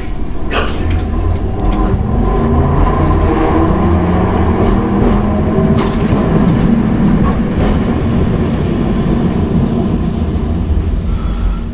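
Hankai Tramway Mo 161-type tram's nose-suspended (tsurikake) traction motors growling, rising in pitch as the tram picks up speed and then holding steady. A few sharp clicks come from the wheels on the rails.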